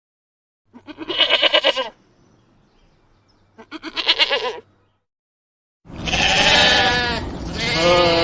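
Lambs bleating: two short, quavering bleats with a pause between them, then from about six seconds in a longer run of bleats over background noise.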